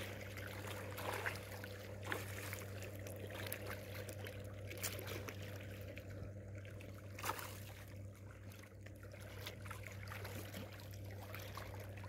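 Small, sharp splashes of a hooked curimbatá fish breaking the surface a few times, over the lapping of choppy river water. A steady low hum runs underneath throughout.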